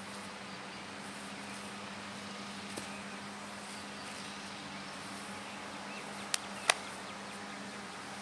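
Steady outdoor background noise with a constant low hum. Two sharp clicks or slaps come about a third of a second apart a little over six seconds in, the second one louder.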